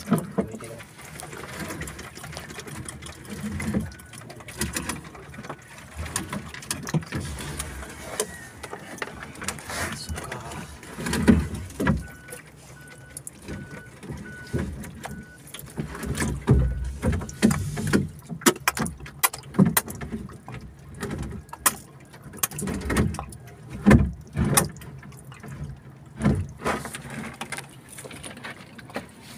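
Irregular knocks and thumps as an octopus and fish are handled and shifted about in a plastic crate on a small boat's deck, some strokes much louder than others.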